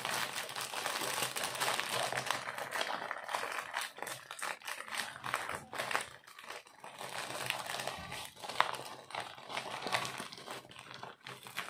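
A plastic zip bag crinkling and rustling as a rolled canvas is pushed and worked into it by hand, with many small crackles and clicks.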